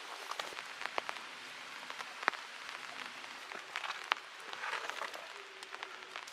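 Footsteps crunching over dry leaves and twigs on a forest path: irregular sharp crackles and ticks.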